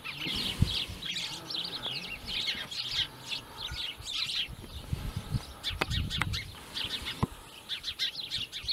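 Many small birds chirping, a busy chatter of short high notes, with a few dull low bumps around the middle.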